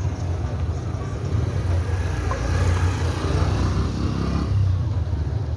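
Steady low rumble of a running motor vehicle engine, with general street noise.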